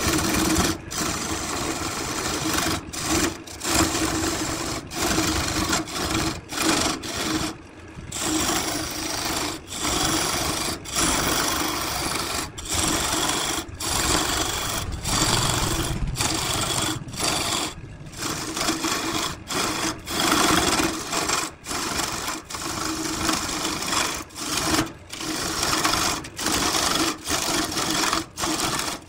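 Wood lathe running as a hand-held chisel cuts the spinning wooden blank: a continuous rough scraping over a steady motor hum, broken by brief gaps every second or two.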